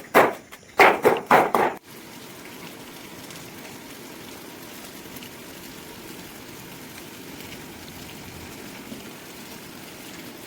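Three loud bursts in the first two seconds, then steady rain falling, an even hiss that holds to the end.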